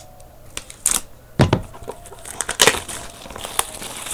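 Packaging of a trading-card box being opened and handled: irregular tearing and crinkling with sharp clicks, and a heavier knock about a second and a half in.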